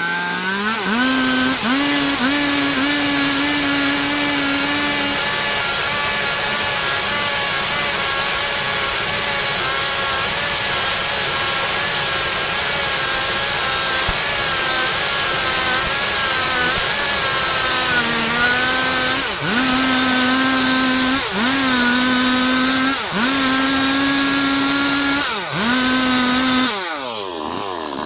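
Stihl MS 382 two-stroke chainsaw revving up and cutting through a log at full throttle, its pitch steady under load. After about eighteen seconds the note sags, then dips sharply several times before the throttle is released near the end and the engine falls back.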